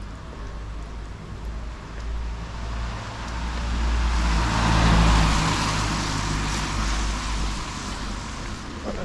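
A car passing by: its engine and tyre noise swell to a peak about halfway through, then fade away.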